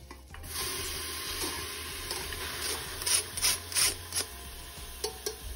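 Stainless mesh strainer scraping and knocking against the rim of an aluminium pressure cooker as raw minced beef is tipped out of it: a steady scraping, then several sharp taps about three seconds in.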